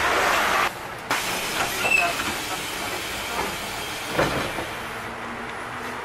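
Cabin noise inside a moving London double-decker bus: steady running rumble with a hiss, scattered rattles and clicks, and a knock about four seconds in. A louder burst of street noise cuts off sharply under a second in.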